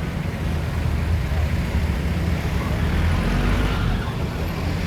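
Steady low rumble with a murmur of voices, and no firework bangs.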